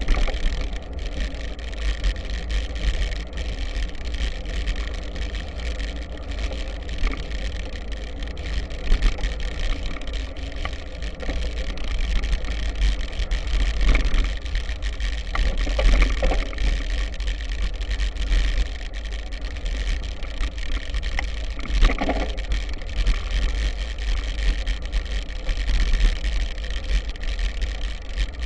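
Wind buffeting the microphone over the tyres of a B'Twin Triban 100 road bike rolling and crunching along a gravel track, with frequent small clicks and rattles from the bike and a few louder knocks over bumps.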